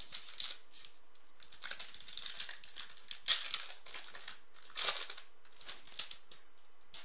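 Foil wrapper of a trading-card pack being torn open and crinkled by hand: irregular crackling, with the sharpest bursts a little past three seconds in and again near five seconds.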